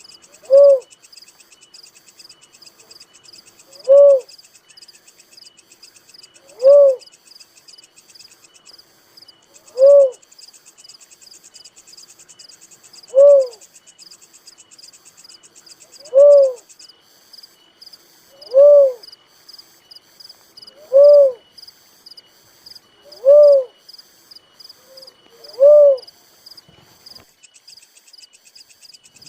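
A dove giving a single low hoot, each rising then falling in pitch, repeated about every two and a half to three seconds, ten in all. A steady high pulsing chorus of crickets runs underneath.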